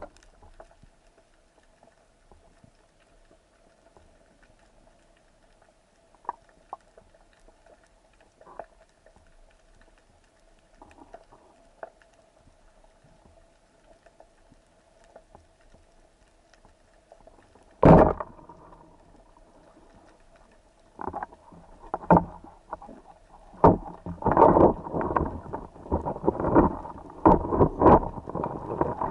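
Heard underwater: a speargun fires with one sharp, loud crack about two-thirds of the way in. A few seconds later a long run of irregular knocks and clatter follows as the speared fish and the shaft strike the stony seabed.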